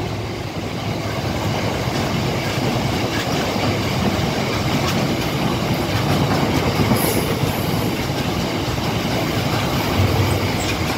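Open box freight wagons of a passing freight train rolling by close at hand: a steady loud rumble of steel wheels on the rails, with a few clicks over the rail joints.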